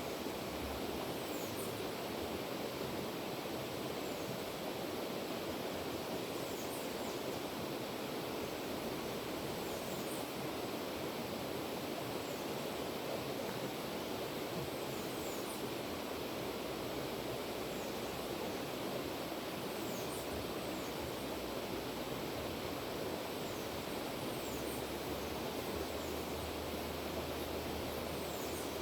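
River water flowing steadily, with faint, short high chirps every few seconds.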